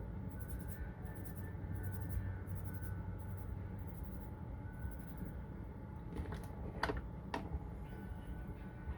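Fingertips massaging product into the hair at the roots: a soft, rhythmic scratchy rustle about twice a second over a low steady hum, with two sharp taps about seven seconds in.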